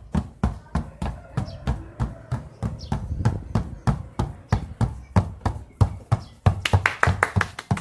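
Two basketballs dribbled together on concrete pavement: a quick, even run of bounces, about four or five a second, getting louder near the end.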